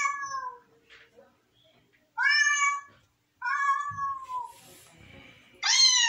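A cat meowing several times in a row, each meow under a second long with short gaps between, the last one sliding down in pitch.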